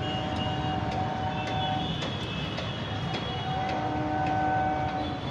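Street traffic din with a steady rumble and several long held vehicle horns at different pitches, sounding one after another.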